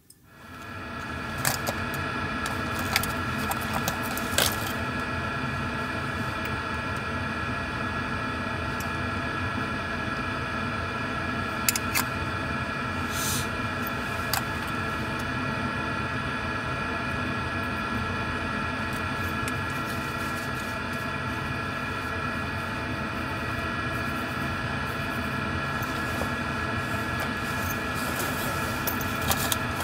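Hair dryer running steadily, a rush of air with a motor whine over it, with a few light knocks from handling.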